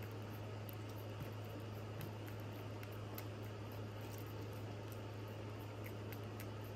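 British Shorthair cat licking paste from a squeeze-tube treat: small wet smacking clicks of the tongue, over a steady low hum.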